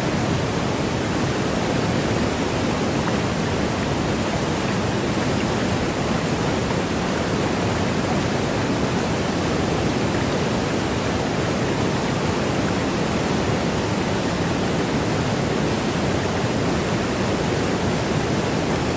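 Steady rushing of running water, an even unbroken roar with no separate splashes or changes.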